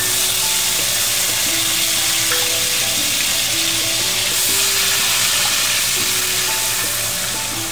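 Onion paste sizzling loudly as it fries in hot mustard oil in a nonstick pan, stirred with a wooden spatula, over soft background music. The hiss eases slightly near the end.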